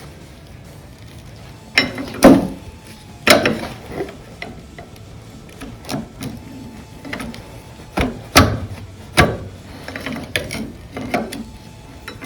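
Steel pry bar clanking and scraping against the John Deere 2630's cylinder head and block in a dozen irregular metallic knocks, starting about two seconds in: the head being levered up to break the head gasket seal.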